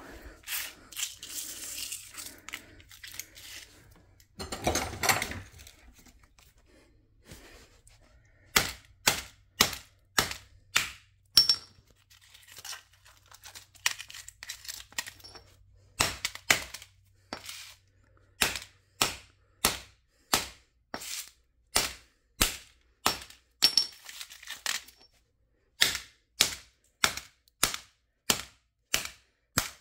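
Hammer blows on a smashed LG Nexus phone: a run of sharp strikes about one and a half a second, in bursts with short pauses, after a few seconds of handling noise.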